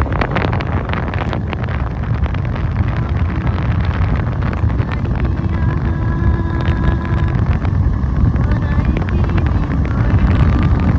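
Wind buffeting the microphone on a moving motor two-wheeler, over a steady low road and engine rumble. A faint held tone sounds for a couple of seconds around the middle.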